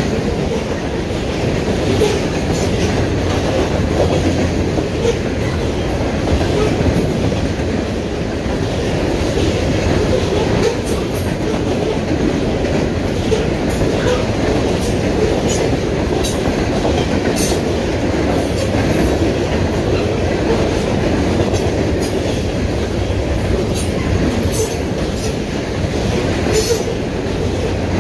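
Norfolk Southern freight train of open-top hopper cars passing at close range: a steady rumble of steel wheels on rail, with sharp metallic clicks that come more often in the second half.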